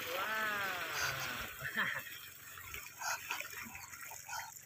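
Water poured from a bucket gushing into a muddy trench, stopping about a second and a half in. Over the start of the pour there is one long call that rises and then falls in pitch, followed by scattered light splashes.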